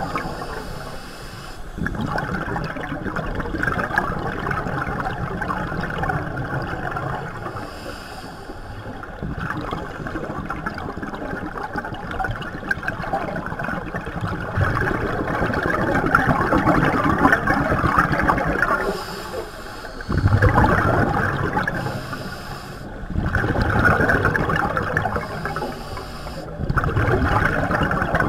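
A scuba diver's regulator exhaling bubbles underwater, heard muffled through a camera housing: gurgling surges of bubble noise a few seconds long, repeating with quieter gaps between breaths.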